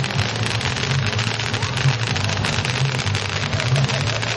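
Fireworks crackling and fizzing without a break, a dense patter of many small pops like heavy rain, over a low steady hum.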